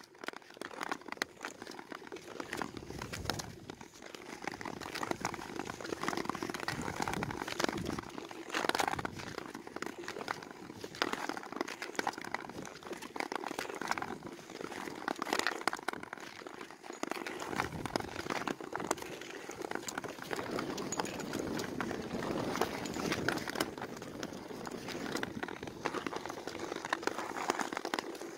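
Ice skates gliding and striding on natural lake ice: a continuous scraping hiss of steel blades, with sharper scrapes and clacks now and then as the skaters push off.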